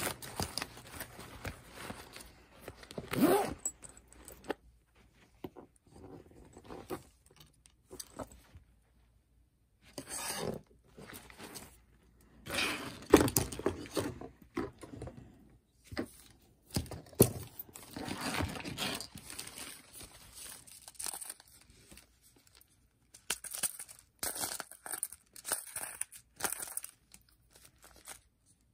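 Plastic bag and product packaging crinkling and rustling as items are handled, in irregular bursts broken by a couple of short pauses.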